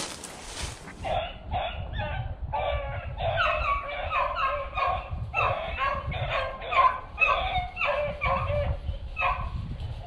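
Beagles baying in a quick run of short, repeated calls starting about a second in: the hounds giving voice as they run a rabbit's scent trail.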